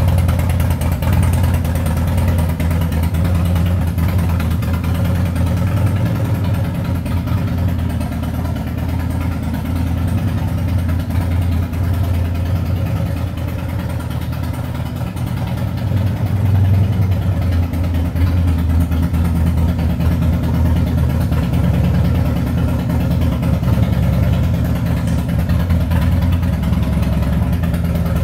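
Harley-Davidson Twin Cam 110 V-twin of a 2010 Softail Convertible CVO idling steadily through slip-on mufflers.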